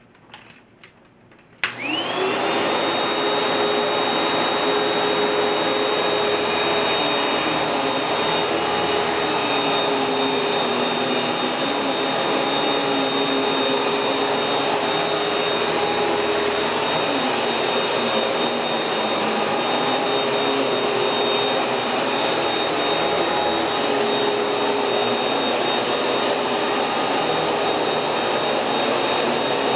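Panasonic MC-UG471 bagged upright vacuum cleaner switched on with a click about one and a half seconds in, its motor spinning up to a high whine and then running steadily.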